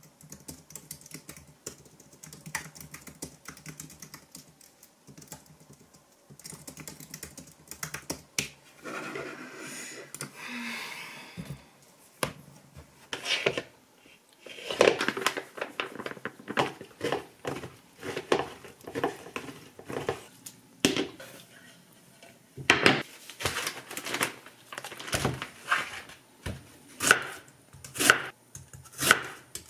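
Fingers typing on a computer keyboard, a run of fine clicks. Later, after a stretch of scattered clicking and clatter, a kitchen knife chops an onion on a wooden cutting board: sharp strikes about once a second, the loudest sounds here.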